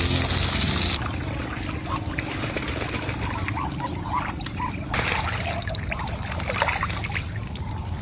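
Many ducks calling in short overlapping calls over running, pouring water, with a steady low hum underneath. The water is loudest for about the first second, then drops and the calls stand out.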